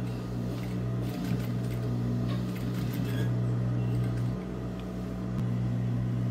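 Steady low hum of an industrial sewing machine's motor running, with light clicks and rustling of fabric being handled at the needle.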